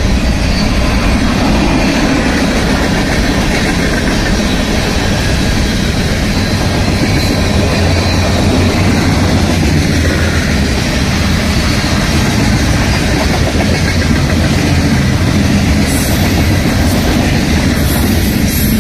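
Norfolk Southern mixed freight train's cars rolling past close by: a loud, steady rumble of steel wheels on the rails.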